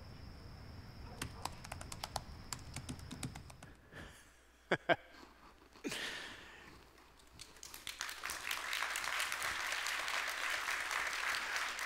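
Rapid clicking of computer keyboard typing for the first few seconds. After a couple of sharp clicks, audience applause swells from about eight seconds in and holds steady.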